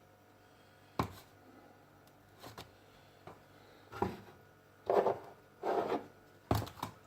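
Kitchen handling noises: a sharp knock about a second in, a few light taps, then two short rustling or scraping sounds and two more knocks near the end, as of containers and utensils being picked up and set down on a worktop.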